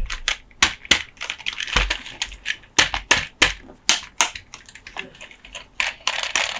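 Close-up ASMR tapping and scratching on Monster Jam toy trucks: a run of sharp, irregular taps and clicks, about two or three a second, with short stretches of scratching or brushing between them.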